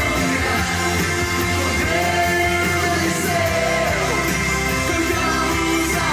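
A Portuguese-language Christian worship song: a singer's held, gliding notes over a full band accompaniment.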